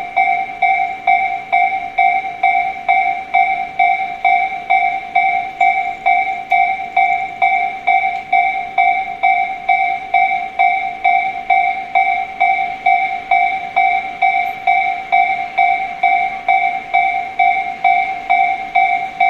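Japanese railway level-crossing warning bell, an electronic ding repeating evenly about twice a second, signalling that a train is approaching.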